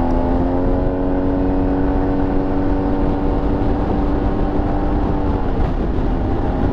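Yamaha TMAX maxi-scooter's parallel-twin engine running under way, its pitch rising slightly and then holding steady, dipping briefly about five and a half seconds in, over a steady low rumble of wind and road noise.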